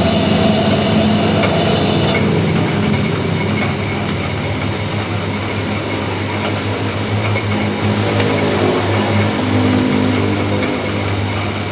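Metal lathe running with a steady mechanical hum; a higher whine drops away about two seconds in.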